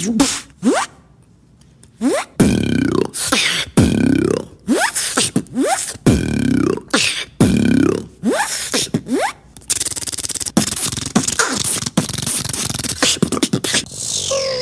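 Beatboxer making vocal sound effects with the mouth: short sounds that sweep up and down in pitch, in an uneven rhythm, after a brief pause about a second in. In the last few seconds they run together into a denser buzzing stretch.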